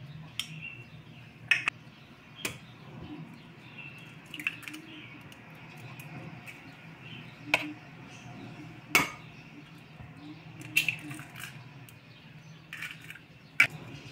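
A metal spoon and kitchenware clinking against a ceramic bowl and a small cup while ingredients go in: about ten sharp, irregular clinks and taps, some in quick pairs, over a faint steady hum.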